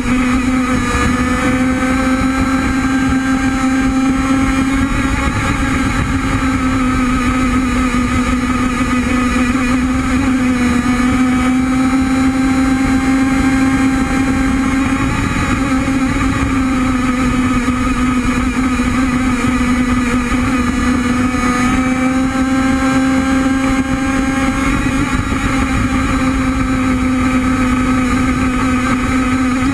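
Gas two-stroke engine of an RC hydroplane boat running flat out with a steady buzz, its pitch easing slightly up and down every few seconds, over a rush of wind and water from the onboard camera.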